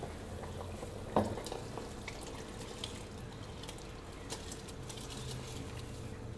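Pan of spiced water with green chickpeas bubbling at a boil. There is a single knock about a second in. From about halfway, rice pours in from a bowl with scattered light clicks and splashes. A faint steady hum runs underneath.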